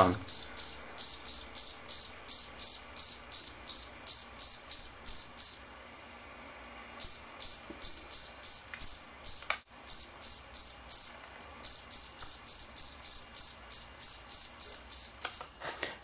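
A cricket chirping, played back from a video on a computer and re-recorded: a regular run of high chirps, about three a second, that stops for about a second near the middle and briefly again later.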